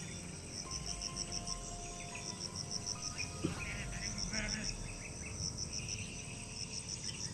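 Insects chirping in the forest in a steady, even pulse of about four chirps a second, with a single short click about three and a half seconds in.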